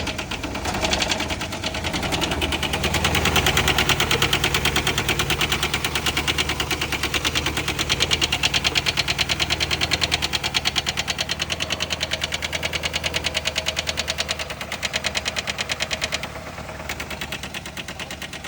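Chevy HHR four-cylinder engine running with a loud, fast, even rod knock from a worn connecting-rod bearing, with gravy and nacho cheese in the oil as a home remedy. The knock still sounds loud, and the engine drops a little in level near the end.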